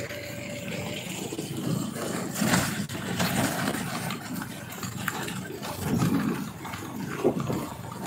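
Vehicle engines running on the move: a motorcycle travelling close behind a dump truck on a wet road, with a continuous rumble that swells and dips.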